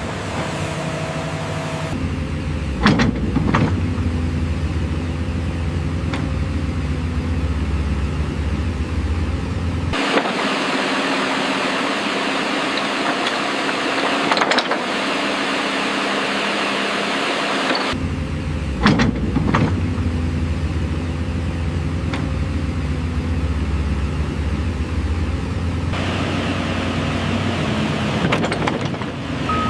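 Excavator diesel engine running steadily, with a few sharp metallic clanks. The sound changes abruptly several times.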